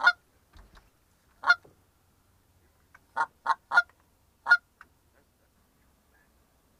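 Goose call blown by a hunter in short Canada goose honks and clucks. There is one sharp note at the start and another about a second and a half in, then a quick run of three around the three-second mark and a last note just after.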